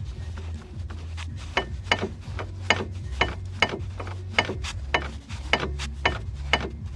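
Ford Focus 2 inner CV joint knocking: sharp knocks about twice a second, starting about a second and a half in, over a steady low engine hum. The owner puts the knock down to a worn inner CV joint.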